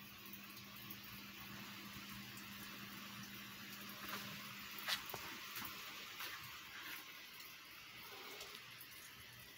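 Quiet room tone: faint steady hiss and a low hum, with a few light clicks and taps through the middle, the sharpest about five seconds in.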